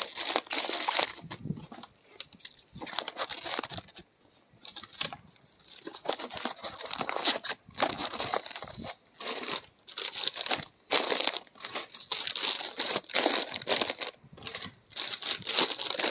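Packaging crinkling and crumpling as it is handled, in irregular bursts with short pauses between them.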